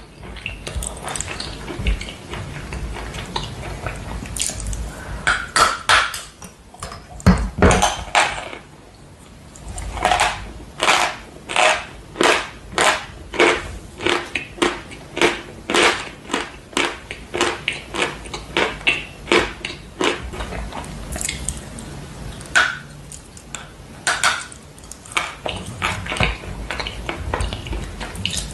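A person biting and chewing dry white chalk blocks with loud crunches. A few sharp bites come first, then from about ten seconds in a steady run of crunching chews, about two a second, which thins out to scattered crunches near the end.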